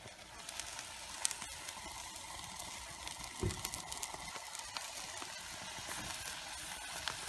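Food sizzling over an open wood campfire, with sliced onions and mushrooms frying in a cast-iron skillet beside burgers in a grill basket. The steady hiss is dotted with sharp crackles from the burning wood, and there is a brief low thump about halfway through.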